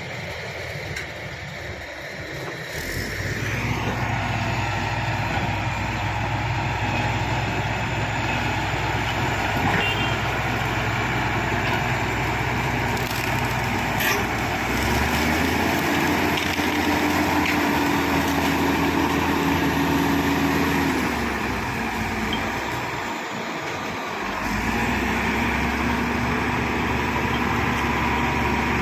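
Shantui SD16 bulldozer's diesel engine running under load. The engine note rises about three seconds in, eases off briefly a little over twenty seconds in, then picks up again.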